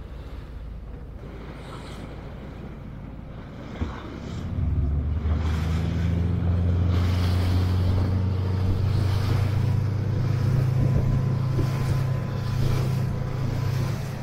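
Tour boat's engine running low, then opening up about four and a half seconds in and holding a steady, much louder drone under power, over a rush of wind and water.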